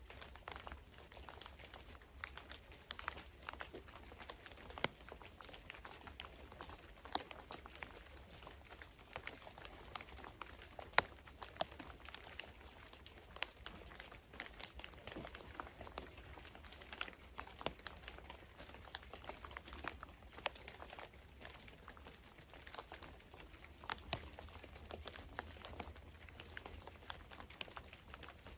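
Faint, irregular patter of water drops, a few soft ticks a second and uneven in strength, over a low steady hum.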